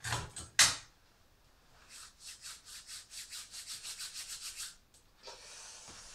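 Two sharp knocks, then a run of quick rubbing strokes, about five a second, for nearly three seconds, and a short rustle near the end, made while a person handles things at a wood-burning stove.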